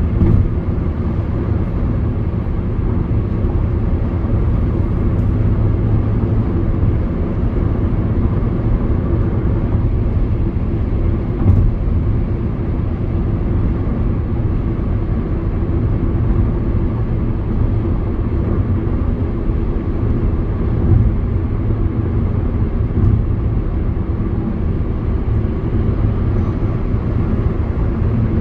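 Car driving steadily: a low rumble of road and engine noise heard from inside the cabin, with a faint hum and a light knock about eleven seconds in.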